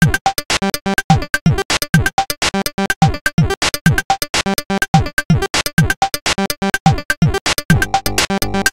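Electronic tracker music from PixiTracker: fast, choppy stuttering synth notes over a steady kick drum beat whose pitch drops on each hit. A low sustained bass joins near the end.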